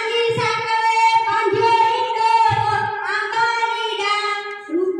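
A child singing into a microphone, a melodic line of held notes with short breaks between phrases.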